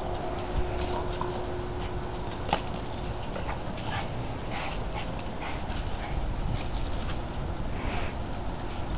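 A wheaten terrier and a Boston terrier at play, making faint dog sounds over a steady low rumble, with a few soft knocks.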